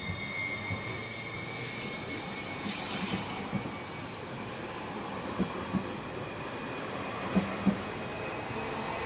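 Koleje Śląskie EN75 (Stadler FLIRT) electric multiple unit pulling out of the station, its running noise steady, with a high whine that fades away in the first few seconds. Its wheels knock over rail joints in quick pairs several times, the loudest pair near the end.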